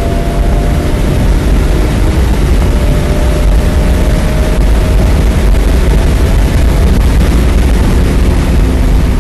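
BMW E46 M3's S54 inline-six running at track speed, heard from inside the cabin over a heavy, continuous low road rumble. A faint engine tone holds steady and sinks slowly in pitch.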